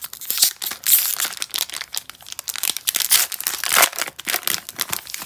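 Foil wrapper of a Pokémon trading-card booster pack crinkling and crackling as it is torn open and the cards are pulled out, a dense run of quick crackles that stops at the end.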